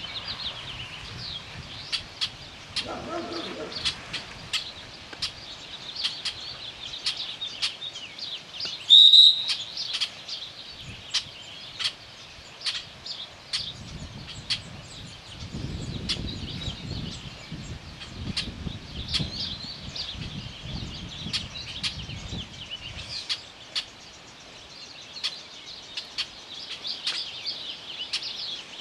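Open-air ambience of birds chirping, dotted with short sharp clicks, with a low rumble for several seconds around the middle. About nine seconds in, a single short, loud, shrill sound stands out as the loudest thing.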